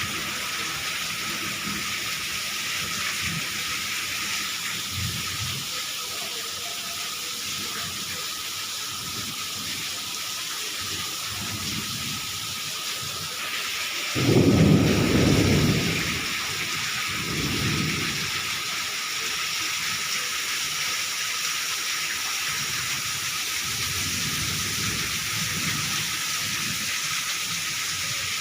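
Steady rainfall hissing, with low thunder rumbling underneath; the loudest roll of thunder comes about halfway through, followed by a smaller one a couple of seconds later.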